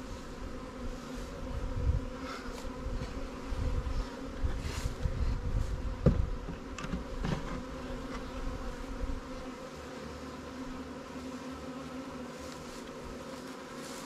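Honey bees buzzing around the hives, a steady hum. A sharp knock comes about six seconds in, with low handling rumbles in the first part.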